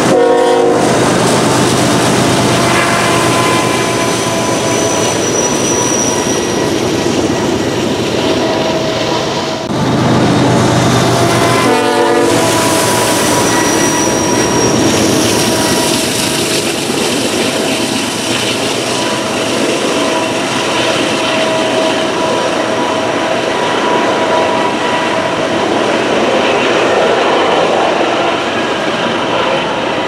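GE diesel freight locomotives running hard as they pass close by, then double-stack intermodal container cars rolling past with steady wheel and rail clatter. Short pitched sounds come near the start and again about twelve seconds in.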